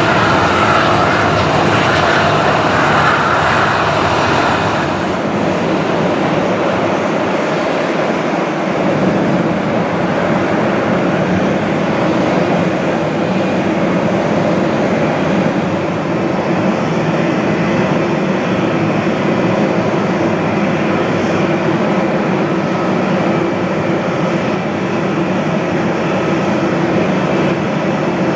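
Airbus A340-300's four CFM56 turbofan engines running steadily on a departing airliner; a brighter hiss in the first few seconds eases off about five seconds in.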